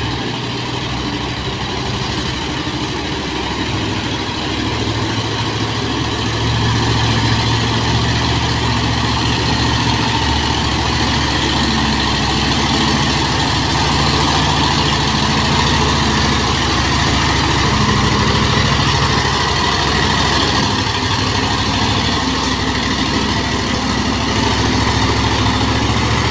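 Mitsubishi Fuso heavy truck's diesel engine running steadily as the loaded truck drives slowly past, growing louder about six seconds in and then holding.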